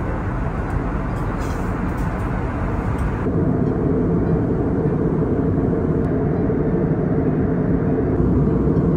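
Steady low drone of a jet airliner in flight, heard inside the cabin: engine and airflow noise. The higher hiss thins out a little over three seconds in.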